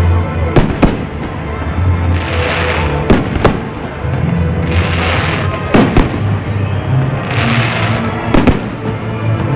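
Fireworks shells bursting in sharp bangs, mostly in close pairs, about every two and a half seconds. Music plays underneath with a steady low bass and regular swelling washes.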